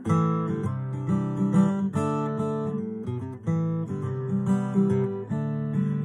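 Acoustic guitar played alone, strummed chords changing about once a second.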